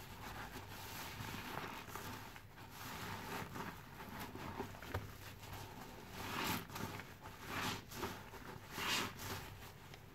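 A soaked sponge squeezed and pressed by rubber-gloved hands in a basin of thick detergent foam: wet squelching and crackling suds, with several louder squeezes in the second half.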